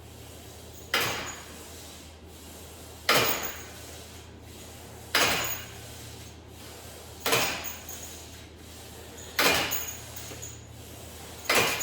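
Cable crunch reps: a short, sharp rush of sound at each repetition, fading quickly, six times at an even pace of about one every two seconds.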